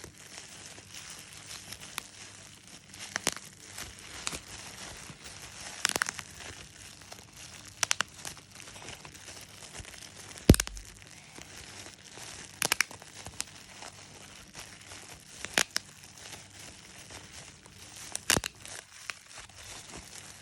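Plastic bubble wrap being squeezed and crinkled, with single bubbles popping every one to three seconds; the sharpest pop comes about halfway through.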